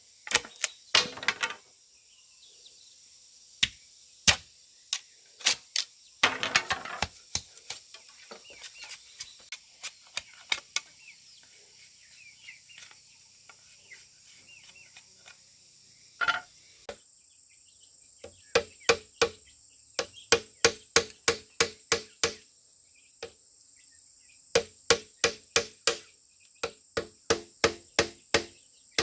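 Repeated sharp blows of a hand tool striking bamboo. They are irregular at first, with one louder blow past the middle, then settle near the end into a steady rhythm of about two to three blows a second. Crickets chirr steadily underneath.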